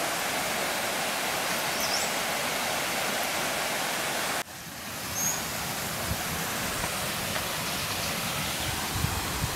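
River water rushing steadily past, an even hiss that breaks off abruptly about halfway through and then comes back.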